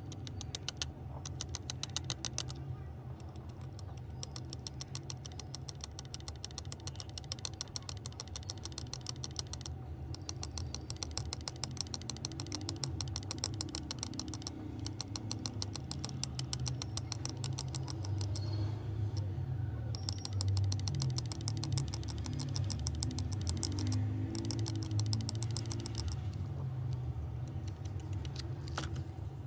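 Rapid fine clicking and scratching of metal tweezers working over the connector pads of a phone circuit board, over a low steady hum.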